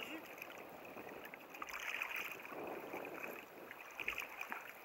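Small sea waves lapping and slapping against a kayak's hull, a steady watery wash with scattered small splashes.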